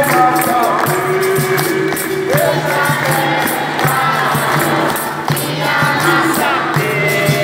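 Capoeira roda music: berimbaus and an atabaque drum playing a steady beat, with a group singing along.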